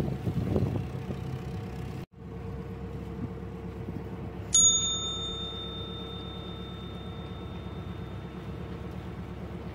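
A narrowboat's diesel engine runs steadily, with wind on the microphone in the first two seconds and a brief cut-out of the sound. About halfway in, a sudden bell-like ding rings out and hangs on for several seconds: a subscribe-button notification sound effect.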